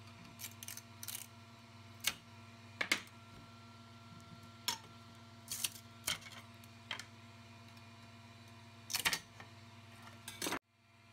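Metal scraper and hands prying 3D-printed PLA parts off a printer's build plate: a scattering of sharp clicks, scrapes and knocks at uneven intervals over a low steady hum. The sound cuts off abruptly just before the end.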